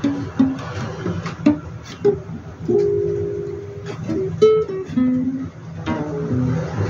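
Music on a plucked string instrument: single notes picked one after another, with one note held for about a second near the middle.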